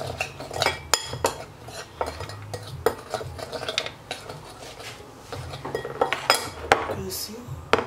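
Metal spoon stirring a thick seasoning paste in a ceramic bowl, clinking and scraping against the bowl in irregular sharp clicks.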